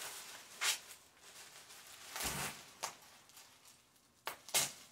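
Bubble wrap crinkling and rustling in a few short bursts as a wrapped part is handled and picked at, with a soft bump a little after two seconds in.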